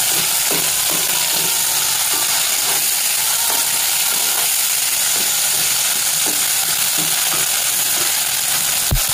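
Chopped onions and tomatoes sizzling in hot oil in a kadai, with a spatula scraping and stirring through them in short strokes. A single sharp knock near the end.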